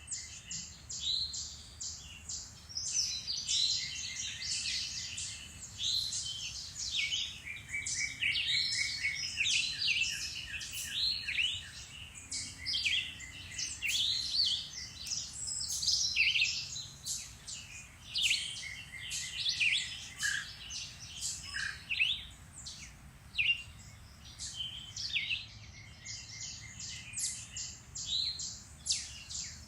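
A chorus of several woodland songbirds singing at once, with many quick overlapping chirps, trills and whistled phrases, over a faint low background rumble.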